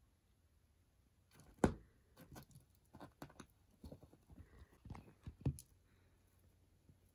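A cat batting and pawing at a toy and wrapped presents: one sharp knock about a second and a half in, then a scatter of light, irregular taps and bumps that stop about a second before the end.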